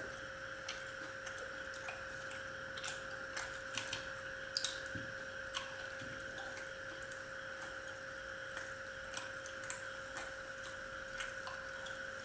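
Eating sounds of two people eating by hand: soft scattered clicks and smacks of chewing, tearing paratha and fingers working in a steel bowl, with a cluster of louder clicks about four and a half seconds in. A steady hum runs underneath.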